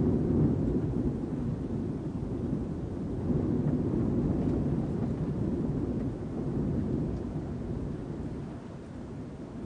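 Wind heard from inside a building: a low rumbling rush that eases off gradually toward the end.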